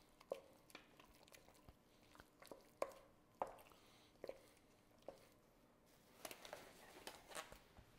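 Faint squishing of softened butter being mixed with a wooden spoon in a stainless steel bowl, with light knocks of the spoon against the bowl every second or so. Near the end comes a short run of rustling and small snaps as a disposable glove is pulled on.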